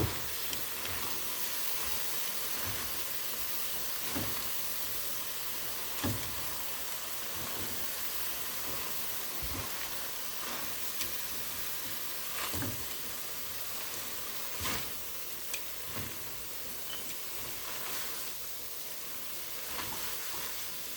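Chicken and vegetable-noodle stir-fry sizzling steadily in a hot pan, with a few scattered knocks and scrapes of a utensil stirring and combining it.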